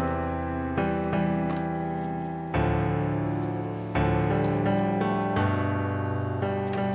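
Background piano music: slow chords struck about every one to one and a half seconds, each ringing out and fading.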